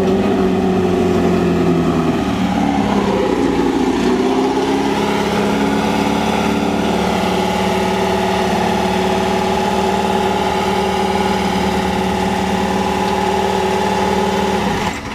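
Off-road race buggy engine running at steady revs. Its pitch dips and wavers between about two and four seconds in, then holds steady until the sound drops off sharply near the end.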